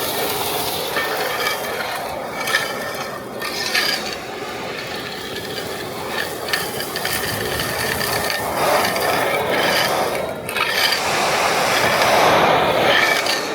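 Depureco ECOBULL TAN industrial vacuum with its side channel blower running, sucking up foundry debris and metal drill chips that clatter through the hose and inlet with many sharp clicks.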